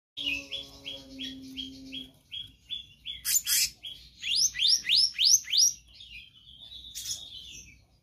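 Black-naped monarch singing. It gives a run of short, clear notes about three a second, then six loud rising whistles in quick succession, and ends in a rougher trill. A brief rustling noise comes about three seconds in.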